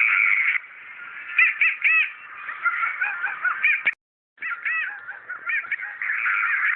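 A crowd of squawking, bird-like calls, many short rising-and-falling chirps overlapping. The sound cuts out completely for about half a second midway, then resumes.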